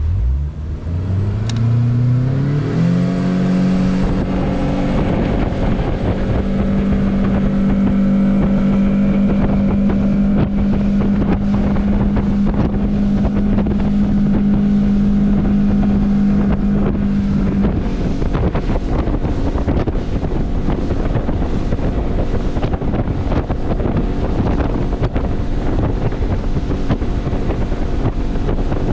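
Bass boat's outboard motor throttling up, its pitch rising over the first few seconds, then running at a steady cruising note as the boat crosses the lake. Wind rushes and buffets the microphone throughout, and after about seventeen seconds it covers the engine note.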